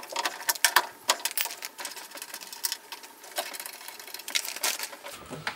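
Ratchet wrench clicking in quick, irregular runs while undoing the 14 mm bolts that hold a Mazda MX-5 window regulator.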